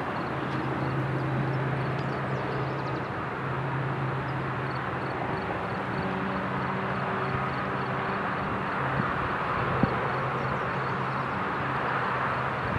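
Heavy Union Pacific freight train crawling upgrade. The freight cars give a steady rumble and clatter on the rails over the low, steady drone of diesel locomotives under load, with one sharper clank about ten seconds in.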